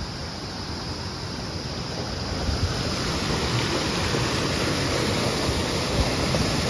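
Shallow mountain stream rushing over rocks, a steady rush of water that grows a little louder a couple of seconds in.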